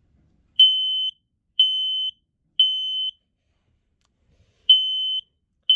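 Kidde P3010L photoelectric smoke alarm sounding on its test button: loud, high-pitched half-second beeps in the standard temporal-three fire-alarm pattern. Three beeps about a second apart, a pause of about a second and a half, then the next group of three starts near the end.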